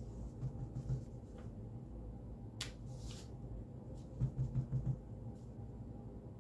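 Clear acrylic stamp block being pressed onto paper and dabbed on an ink pad: soft low thumps, a quick run of about five near the end, with a sharp click and a brief paper rustle around the middle.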